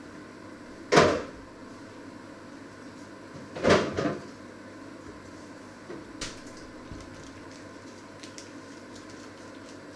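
Two loud knocks of kitchen doors being shut, about three seconds apart, the second with a smaller knock just after it, followed by a few light clicks and taps.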